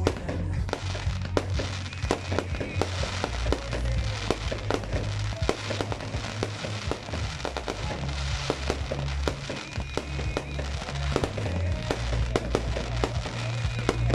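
Fireworks display going off: many sharp bangs and crackles in quick succession. Music with a heavy bass line plays over them.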